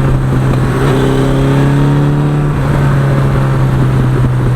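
1982 Suzuki GS1100E's air-cooled inline-four engine running under way. Its note rises for about a second and a half, then settles.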